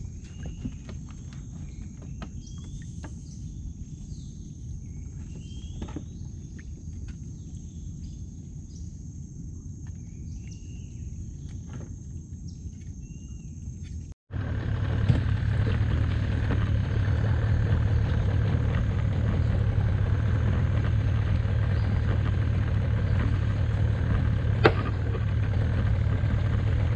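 Small fishing boat's engine running with a low hum, while birds chirp over a steady high-pitched drone. After a sudden break about 14 seconds in, the engine is much louder and steady, with one sharp click near the end.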